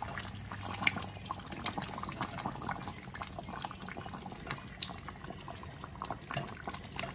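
Thick chicken curry gravy bubbling in a stainless steel pot, with many small irregular pops.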